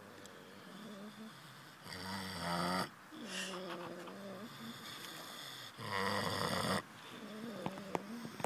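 A sleeping pig snoring: two loud snores about four seconds apart, each lasting about a second, with softer pitched breathing between them.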